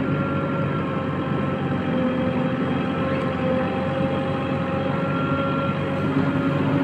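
Diesel engine of a JCB 3DX backhoe loader running steadily, with a thin steady whine over it.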